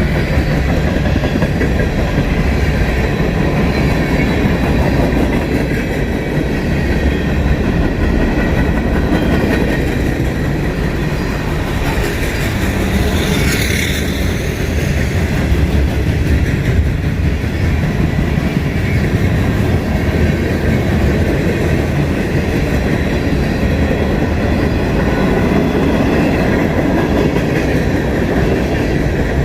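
Railcars rolling steadily past, their wheels clattering over rail joints. A brief brighter, higher sound comes about halfway through.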